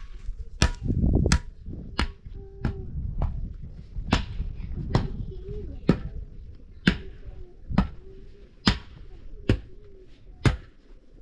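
Sharp knocks struck at a steady pace, a little faster than one a second, like a tool or hand striking repeatedly.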